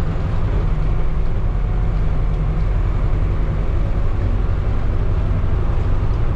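Converted minibus motorhome driving, with a steady low engine and road rumble and no sudden sounds.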